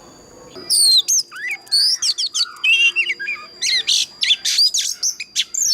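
Oriental magpie-robin singing: a rapid, varied phrase of loud whistles, swooping slurred notes and a few harsh notes. The phrase starts about half a second in and breaks off abruptly at the end, over a faint steady high tone.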